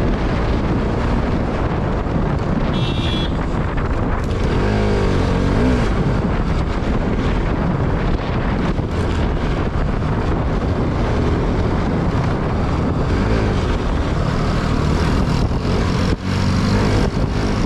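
Motorcycle being ridden on the road: engine running under heavy wind noise on the microphone, with a pitch change around five seconds in and a brief high tone about three seconds in.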